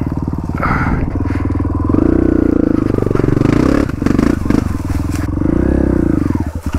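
140 cc dirt bike engine revving up and down under changing throttle, loudest in surges through the middle, with clattering from the bike. The engine drops briefly near the end.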